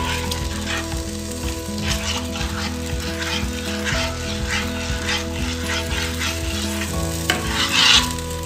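Metal spoon stirring a simmering orange sauce in a stainless saucepan, scraping round the pan in repeated strokes, over a steady sizzle of cooking. The stirring works in the thickener as the sauce simmers.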